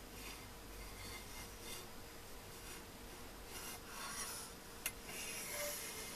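Height gauge sliding over a surface plate while its carbide-tipped scriber scratches lines into a copper tube blackened with permanent marker. It makes a series of faint scraping strokes, with a sharp click nearly five seconds in.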